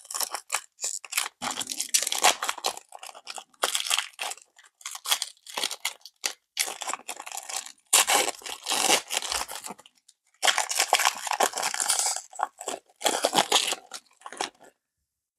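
A trading card pack's wrapper being torn open and crinkled in handling, in a run of irregular rustling bursts that cuts off suddenly near the end.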